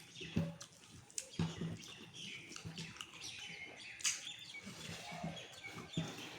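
Small birds chirping, with several sharp clicks or taps in between.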